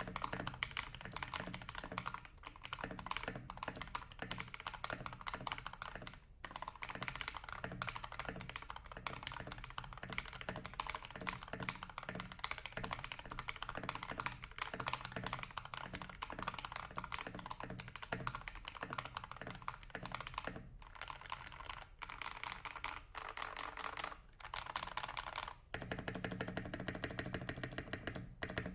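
Royal Kludge RK G68 mechanical keyboard with KTT Kang White V3 linear switches and PBT keycaps, typed on fast and continuously: a dense, thocky clatter of keystrokes with a few brief pauses.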